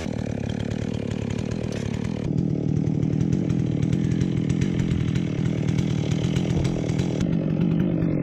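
Holzfforma G660 two-stroke chainsaw (a Stihl 660 clone) running steadily on a chainsaw mill, with a change in its tone about two seconds in.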